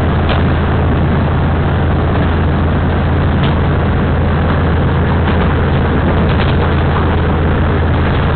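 Taiwan Railway DR2700 diesel railcar under way, heard from the front of the car: a steady low engine drone under constant running noise, with a few faint ticks.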